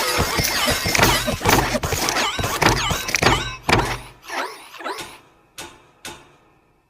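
Several overlapping, effect-altered copies of the Pixar intro lamp's sound effects: squeaks and thumps from the hopping desk lamp. They are dense for about four seconds, then thin to a few separate thumps that die away.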